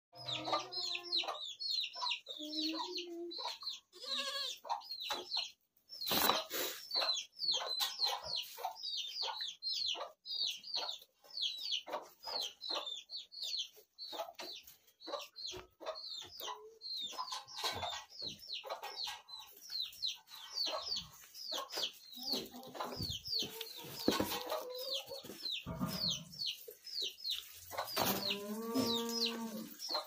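Small birds chirping rapidly and without pause, over the rustling and munching of Barbari goats feeding on hay at a trough. One goat bleats once, drawn out, near the end.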